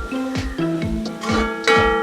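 Background music: ringing melody notes over a steady beat.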